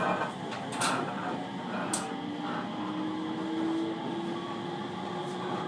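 Interior running noise of a 701 series electric train, with a motor whine that rises slowly in pitch as the train gathers speed and a few sharp clicks over a steady rumble.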